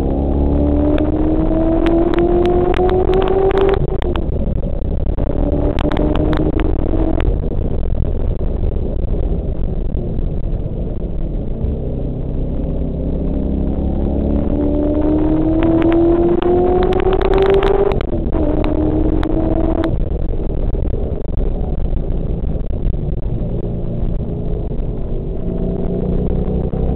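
Car engine heard from inside the cabin at track speed, climbing in pitch under hard acceleration and dropping suddenly at each gear change, about 4 seconds in, about 7 seconds in and after a long pull ending about 18 seconds in, with lower, steadier running between pulls. Sharp clicks come near the top of the pulls.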